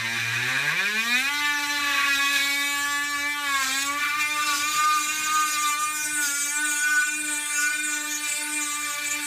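Dremel Stylus rotary tool with a diamond bit drilling a hole through glass held under water. Its motor whine rises in pitch over about the first second as it spins up, then holds steady, with a brief dip in pitch a few seconds in.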